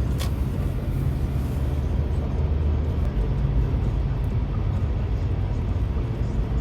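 Steady low rumble of a moving car, with one short click a moment after the start.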